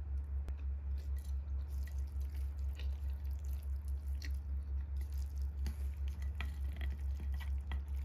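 Wooden chopsticks mixing and lifting spicy sauced noodles in a metal bowl: wet squishing with scattered light clicks of the chopsticks against the bowl. A steady low hum runs underneath.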